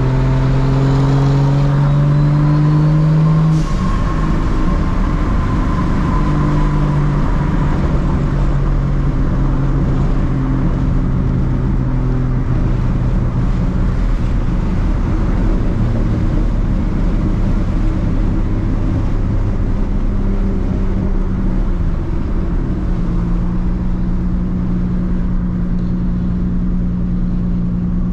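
Straight-piped, big-turbo Toyota Supra MKIV's 2JZ straight-six heard from inside the cabin. The revs climb for about three and a half seconds, then drop off suddenly, and the engine settles into a steady cruising drone whose pitch shifts a few times.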